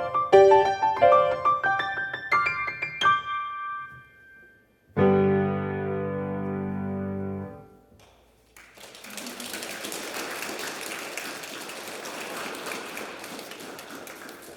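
Solo piano playing a run of notes that climbs and dies away, then a loud final chord held for about two and a half seconds and released. After a second of silence, an audience starts applauding and keeps on.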